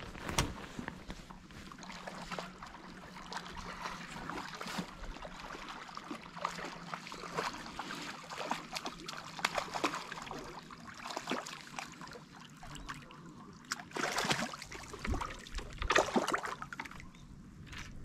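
Water splashing and sloshing in irregular bursts as a hooked fish thrashes at the surface on a pole rod's line, the strongest splashes coming near the end.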